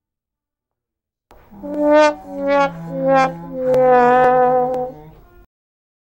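The "womp womp" sad-trombone sound effect: a brass horn plays four notes, each lower than the last, the fourth held long with a wobble. It starts about a second and a half in.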